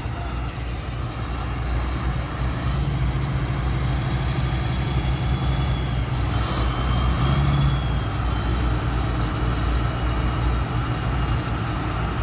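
Pulling tractor's engine idling steadily, a low even hum, with a brief hiss about six and a half seconds in.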